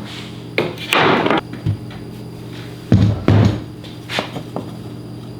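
Pieces of plywood knocked and slid about on a workbench: a scraping clatter about a second in and a heavier thump about three seconds in, over a steady low hum.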